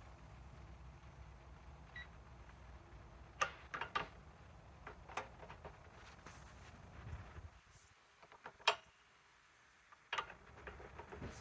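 Scattered clicks and metallic knocks from a digital torque wrench being hand-cranked on a bolt, with a short faint beep from the wrench about two seconds in.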